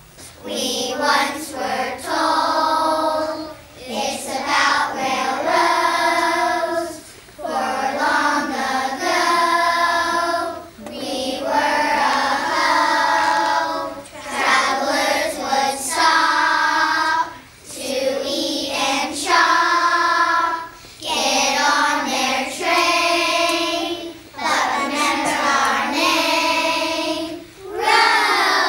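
A group of first-grade children singing a song together, in phrases of one to three seconds separated by short breaths.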